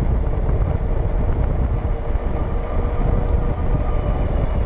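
Wind rushing over the microphone and fat tires running on pavement as the ENGWE Engine Pro folding e-bike rolls downhill at about 23–24 mph. A faint steady whine sits underneath.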